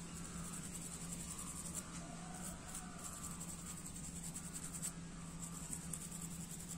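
Toothbrush bristles wet with petrol scrubbing a small car-electronics circuit board in light, quick strokes, cleaning off yellowish greasy residue left by moisture. A steady high insect trill runs behind it.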